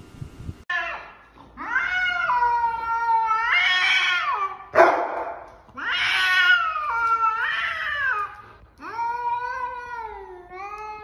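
An angry cat yowling: a series of long, drawn-out caterwauls that rise and fall in pitch, with a short hiss about five seconds in.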